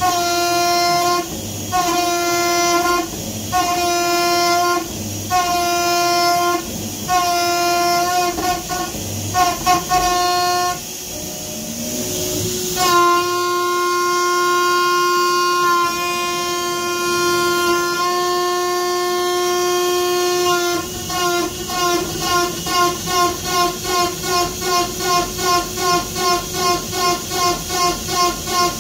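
PrintNC CNC router's axis drive motors whining through high-speed rapid moves. The whine is pitched and starts and stops with each move about every second and a half. About halfway through it glides in pitch, then holds as one long steady move. Near the end it turns into a quick pulsing about two to three times a second as the machine shuttles back and forth.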